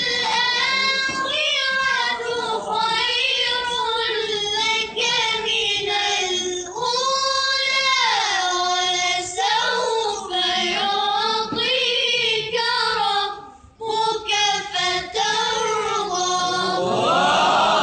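Children's voices chanting a melodic Quran recitation (tilawah), with long held notes that waver and bend in ornamented runs. There is a short pause for breath about three-quarters of the way through. Near the end the chanting gives way to a noisier mix of voices.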